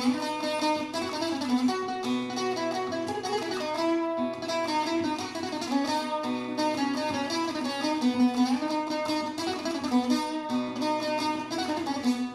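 Instrumental passage of a Kurdish song, played on plucked string instruments with quickly picked notes.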